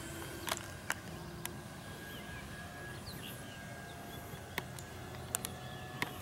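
Faint, steady drone of an RC FlightLine P-38L Lightning's twin electric motors and propellers flying at a distance, its pitch stepping a little now and then with throttle. Several sharp clicks stand out over it.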